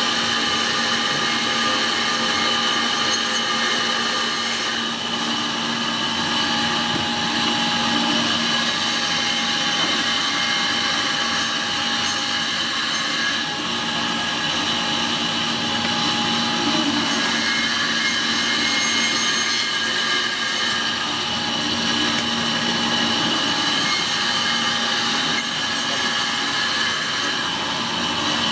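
Meat band saw running steadily, a constant motor whine under the rasp of its blade cutting through dry-aged beef and bone as porterhouse steaks are sliced.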